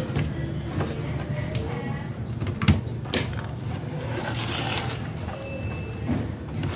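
A few sharp clicks and light knocks, as of hands and tools handling parts on a workbench, over a steady low hum.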